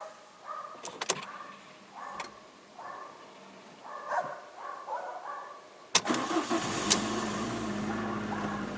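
A few clicks and short faint sounds, then the Fiat Stilo's 1.6 16V petrol engine is cranked about six seconds in, catches about a second later and settles into a steady idle.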